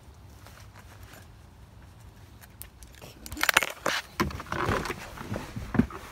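Handling noises as a person climbs into a car's driver's seat: after a few quiet seconds, a run of irregular clicks, rustles and knocks.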